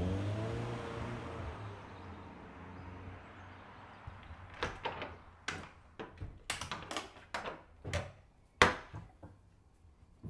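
Car engine accelerating away, its pitch rising and then fading over the first few seconds. Then a run of sharp clicks and knocks from a front door's lock and latch as the door is unlocked and opened, the loudest knock near the end.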